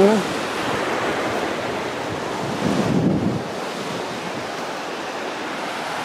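Steady rush of wind buffeting the microphone mixed with surf washing on the beach, with a brief low swell in the noise about three seconds in.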